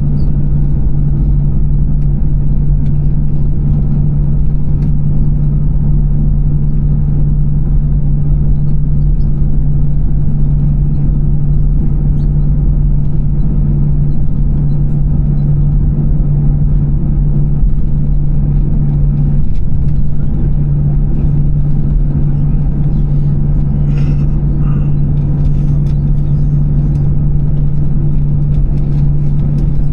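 Steady loud cabin drone inside an Airbus A320-214, with a constant low hum from the engines and air systems and no change in pitch. A few faint clicks come near the end.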